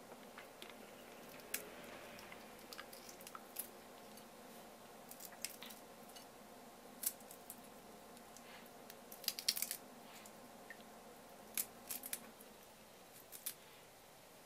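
Boiled shrimp shells cracking and crackling as they are peeled by hand: sharp, irregular clicks every second or two, with a quick cluster about nine seconds in.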